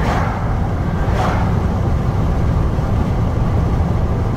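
Steady low rumble of a vehicle cruising at highway speed, heard from inside the cab. Two short hissy sounds come near the start, about a second apart.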